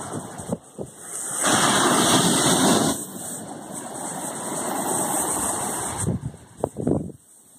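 Sea surf washing onto a beach, with a louder rush of breaking water about a second and a half in that lasts roughly a second and a half, then dropping low near the end.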